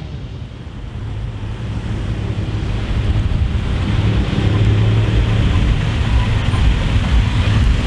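Car engine and exhaust under acceleration, growing steadily louder over the first few seconds and then holding loud, with a heavy low rumble.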